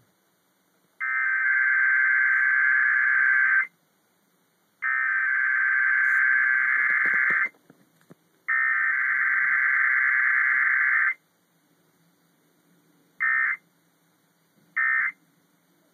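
Emergency Alert System digital data bursts over FM radio: three long warbling bursts of about two and a half seconds each, a second apart. These are the coded alert header sent three times. Then come two short bursts, the start of the end-of-message code. No attention tone and no voice message follow the header.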